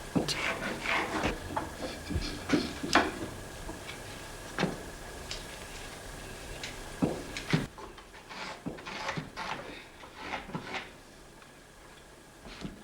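Wooden saddle-frame pieces being handled in a workshop: irregular hollow knocks and clacks of wood against wood and bench, a few sharper than the rest. A faint steady high hum sounds under the first half and stops partway through.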